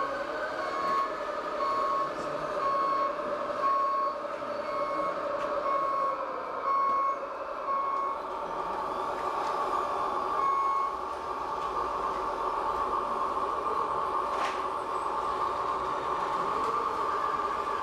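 Reversing beeper of a radio-controlled model truck: a single-pitch beep repeating about once a second, stopping about eleven seconds in, over a steady hum. A single sharp click near the end.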